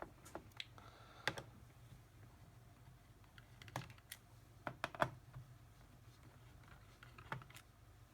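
Scattered faint clicks and taps from a small screwdriver loosening the bottom-panel screws of a Lenovo P50 laptop, with a quick cluster of clicks around the middle.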